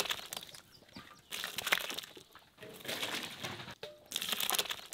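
Cooked tomato pulp being poured from a large metal pot into a plastic bucket, splattering in four wet surges about a second and a half apart.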